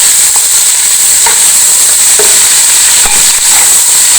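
Onions, whole garam masala and crushed ginger-garlic sizzling steadily in hot oil in a cooking pot, stirred with a spoon that clicks and scrapes against the pot now and then.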